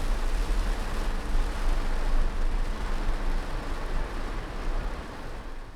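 Rain on a Chevrolet car's body heard from inside the cabin: a steady hiss of rain over a low rumble, fading out near the end.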